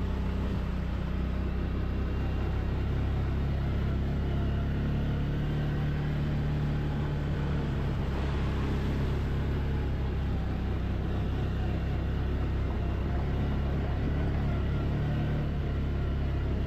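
ATV (quad bike) engine running steadily, a low, even drone that holds its pitch and level throughout.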